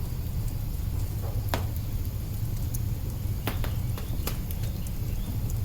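Log fire crackling in an open hearth: a steady low rumble of burning wood with sharp pops and snaps scattered irregularly through it, the strongest about a second and a half in and a few close together around three and a half to four and a half seconds.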